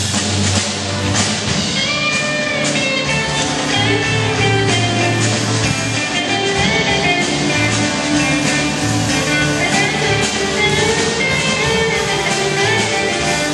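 Live rock band playing: electric lead guitar with bent notes over bass guitar, loud and steady.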